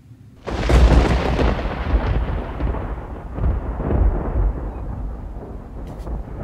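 A sudden loud boom about half a second in, then a long, deep rolling rumble that swells again a couple of times as it slowly fades.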